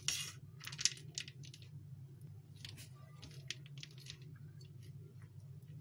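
A metal spoon stirring boiled split chickpeas and fried peanuts on a plate: scattered light clicks and scrapes of spoon on plate, loudest near the start, over a steady low hum.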